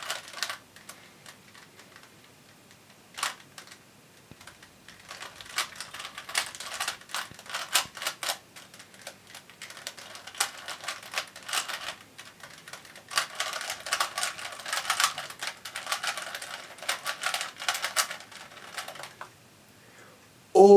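Rubik's Cube being turned quickly by hand: rapid plastic clicking and clacking in bursts of several seconds, broken by short pauses.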